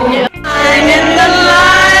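Pop music with a singer's voice, cutting out briefly about a quarter of a second in and resuming.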